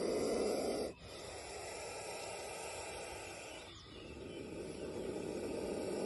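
Indian spectacled cobra hissing with its hood spread, an angry defensive hiss. It comes as long breathy hisses: the first breaks off sharply about a second in, a quieter one follows and fades to a short break near four seconds, then another hiss builds up.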